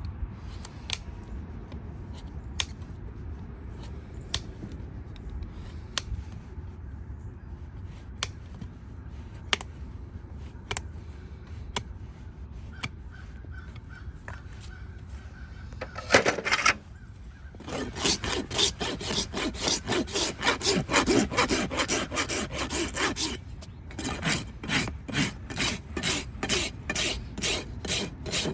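A farrier's rasp filing a hoof, in quick, even back-and-forth strokes of about two to three a second, with a short break partway through. Before the rasping there are only single sharp clicks over a low rumble.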